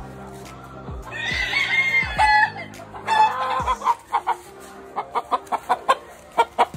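Gamefowl roosters crowing twice, about a second in and again about three seconds in, followed by a run of short, rapid clucks at about four a second. Background music runs underneath.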